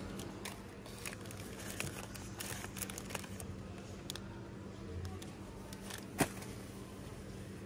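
Plastic snack-bar wrappers crinkling as they are handled and dropped into a wire shopping cart, with small clicks and one sharp click about six seconds in, over a steady low hum.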